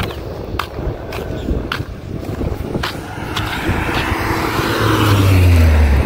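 Footsteps on a road at about two steps a second, then a motor vehicle passing close by from about halfway through, growing louder, its engine note dropping as it goes past.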